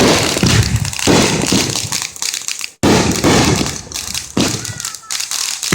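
Fireworks going off: a rapid run of loud bangs, about four big ones, each trailing into crackling. The sound drops out abruptly for a split second about halfway through.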